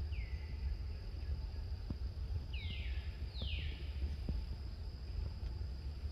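Four short, high animal calls, each sliding downward in pitch: one near the start and three close together around the middle, the last two harsher. A steady low rumble and a steady high hum run underneath.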